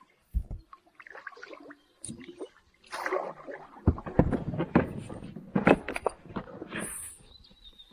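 Handling noise in a small boat: a low thump about half a second in, then a run of knocks, scrapes and rustles as fishing gear is worked, with the loudest knocks about four and six seconds in.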